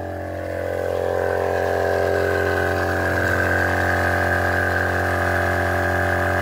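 Heavy-duty 12 V twin-cylinder portable air compressor running under load as it inflates a car tyre: a steady motor hum whose pitch sags a little and grows louder in the first second or so, then holds.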